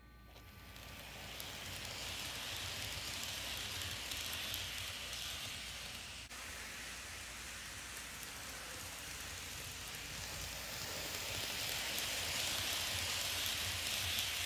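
Kato N-scale model train rolling along the track, a steady hiss of wheels and motor. It grows louder over the first two seconds and is loudest near the end as the train passes close by.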